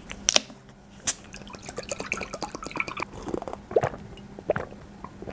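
Close-miked drinking from a glass mug: two sharp clicks in the first second or so, then small wet sips and several swallows.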